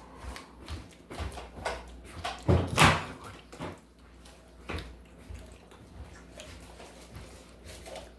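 Crunchy puffed cheese balls being chewed, a string of irregular short crunches with a louder cluster about two and a half seconds in.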